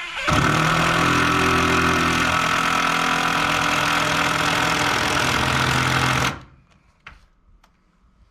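A power tool's motor running steadily for about six seconds, starting and stopping abruptly.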